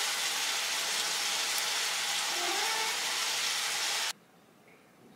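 Food sizzling steadily in a frying pan, cutting off abruptly about four seconds in.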